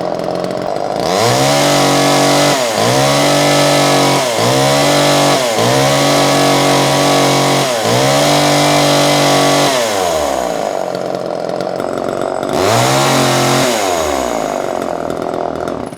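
Homelite Super EZ two-stroke chainsaw running and being revved repeatedly: the throttle is opened to a high, steady pitch several times in a row, with the engine speed sweeping down between pulls. It then settles to idle and is revved once more before dropping back.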